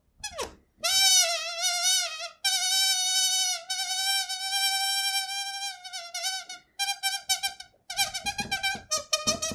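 Balloon squeaking: a wavering squeal about a second in, then a long steady squeal held for about three and a half seconds, then a run of short, choppy squeaks near the end.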